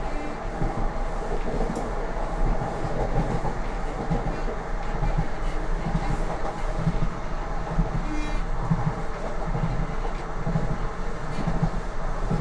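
Lastochka (Siemens Desiro RUS) electric train heard from on board, its wheels clattering over the rail joints at speed: a steady running rumble with low knocks about once a second.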